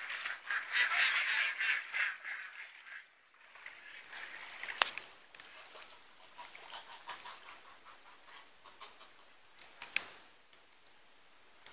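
Domestic geese honking in a pen, loud and in a flurry for the first two seconds or so, then fewer and quieter calls. Two sharp clicks come about five and ten seconds in.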